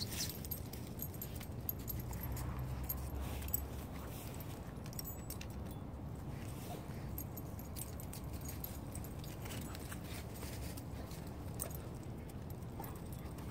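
Dogs moving about on straw and stone paving: faint scuffing steps and occasional light clinks, over a low steady rumble that eases after about four seconds.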